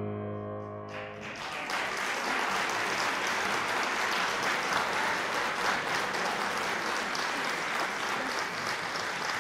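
The last piano chord dies away, then audience applause starts about a second in and keeps up steadily.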